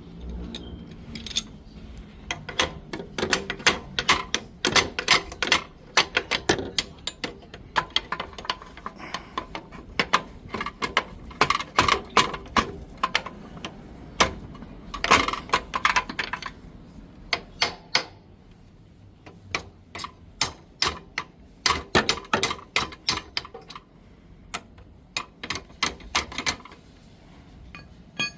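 Runs of rapid clicking from hand tools at work on the motorcycle, coming in clusters of a second or two with short pauses between them.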